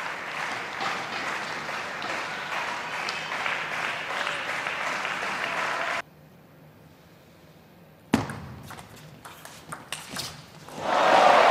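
Table-tennis crowd applauding and cheering after a point, cut off abruptly about six seconds in. A quiet hall follows with a sharp click and a few lighter clicks of the ball, and the crowd noise rises again near the end.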